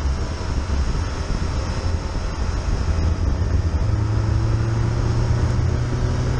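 Fiat Panda driving at speed, with engine and tyre-on-road rumble. About four seconds in, the engine note settles into a steady hum that slowly climbs in pitch as the revs rise.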